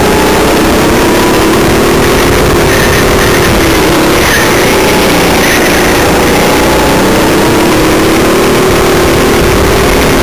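Go-kart engine heard from onboard the kart, running loud and continuously, its pitch sagging a little about four seconds in and climbing again afterwards as the throttle is worked through the corners.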